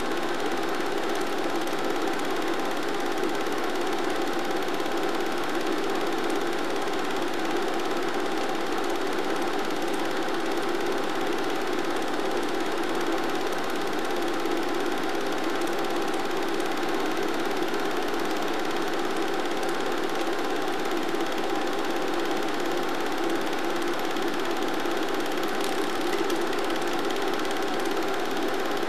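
Film projector running steadily, its mechanism giving an even whirring clatter that does not rise or fall.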